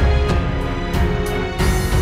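Background music with sustained tones and drum hits.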